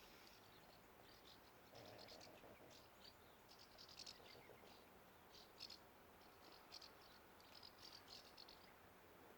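Faint, high chirps from small birds in short irregular clusters, over quiet outdoor background.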